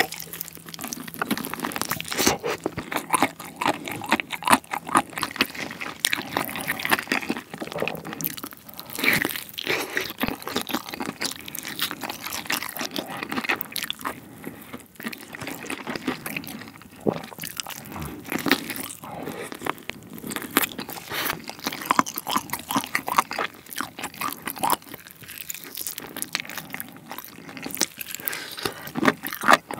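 Biting and chewing of a sauce-coated fried chicken drumstick (yangnyeom chicken): a steady run of crunches and chewing sounds, with bites gnawing the meat off the bone.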